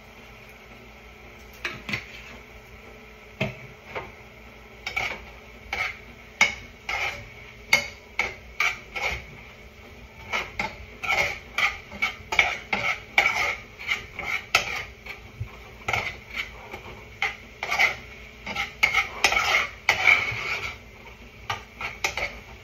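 A cooking utensil scraping and knocking against a pot as ground beef is stirred on the stove. The strokes come in quick, irregular runs: a few early on, then several a second from about five seconds in until near the end.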